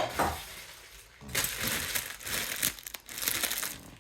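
Plastic packaging crinkling and rustling as it is handled, in uneven bursts, after a knock right at the start.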